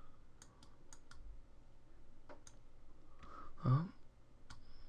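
A handful of sharp computer mouse and keyboard clicks, most of them in the first second, with a short rising vocal "hm" from a man about three and a half seconds in.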